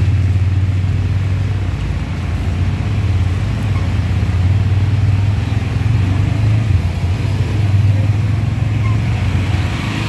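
Small auto-rickshaw engine running steadily at low speed, a constant low hum.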